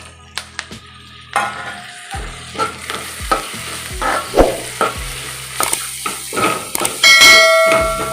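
Food frying in hot oil in a pan, the sizzle starting about a second in, while a spoon stirs and scrapes it with repeated knocks. A metallic ringing tone sounds near the end.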